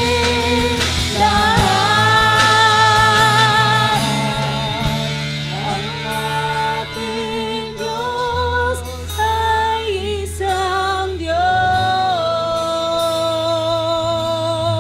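Live worship band playing a gospel song: sung vocals holding long, wavering notes over keyboard, electric and acoustic guitars, bass and drums.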